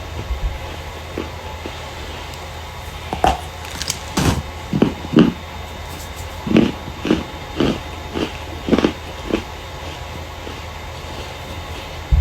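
Starch being crushed: a string of short, soft crunches, about two a second, starting about three seconds in and stopping shortly before the end, over a low steady hum.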